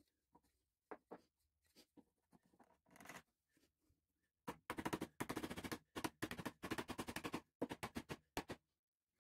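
Soft-faced mallet tapping a plywood shelf divider into a tight slot in a plywood holder, dry-fitted without glue. A few light knocks as the piece is set in place, then a long run of quick taps from about halfway through.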